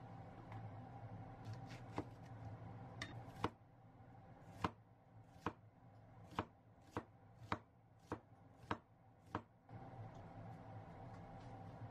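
Chef's knife slicing a new onion on a wooden cutting board: about nine evenly paced strokes, each ending in a knock on the board, with a few lighter taps just before. A low steady hum sits underneath before and after the slicing.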